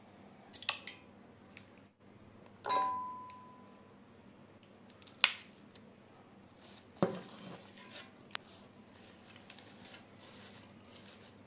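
A ceramic bowl and ingredients knocking against a stainless-steel mixer-grinder jar as curd and green chillies are added: a few scattered sharp clinks, one ringing knock just under three seconds in, and a duller thud about seven seconds in.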